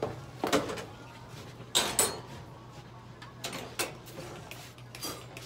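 Metal clicks and clanks of a wire animal cage door being handled and latched: about half a dozen sharp knocks spread over a few seconds, the loudest pair close together about two seconds in.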